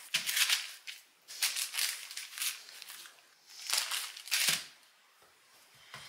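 Hands working floured bread dough: a few short dry rustles and pats, with a soft thump about four and a half seconds in.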